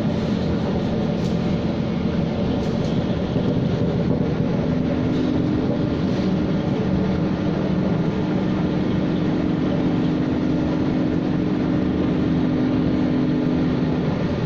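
Inside a moving SMRT C651 metro train: steady running noise of the car on the track. A steady hum joins in about five seconds in, with a few faint clicks before it.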